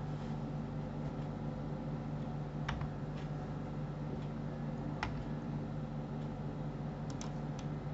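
A handful of sharp, isolated clicks from a computer mouse and keyboard over a steady low electrical hum.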